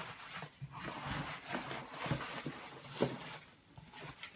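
Cardboard shipping box being opened by hand: flaps and packing material rustle and scrape, with a few light knocks, and one louder scrape about three seconds in.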